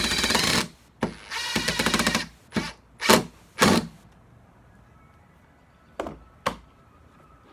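Cordless drill driver running in short bursts, driving a screw into a wooden chair slat, followed by a few brief knocks and clunks of wood near the end.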